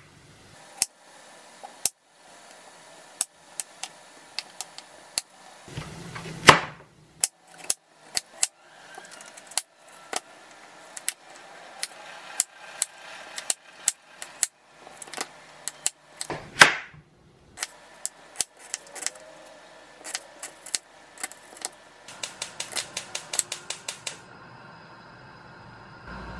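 Chef's knife chopping zucchini and carrot on a wooden cutting board: sharp single knocks of the blade on the board, two louder knocks along the way, and a quick run of chops, about six a second, near the end.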